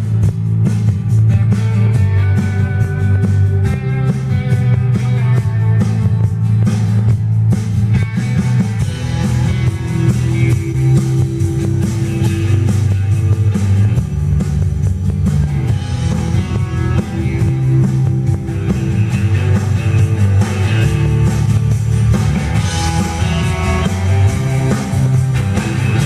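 Rock music with guitar and drums, played back through a 1979 Kenwood KA-305 stereo integrated amplifier.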